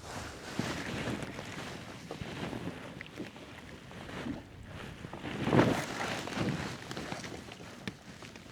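Water sloshing and splashing around a fishing kayak, with wind on the microphone; one louder swish comes about five and a half seconds in.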